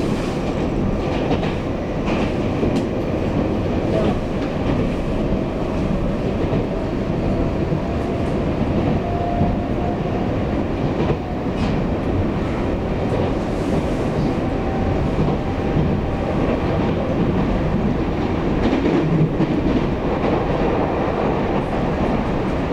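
Running sound of a Taiwan Railways EMU800 electric multiple unit heard from inside the passenger car: a steady rumble of wheels on the track, with a faint whine and a few light clicks.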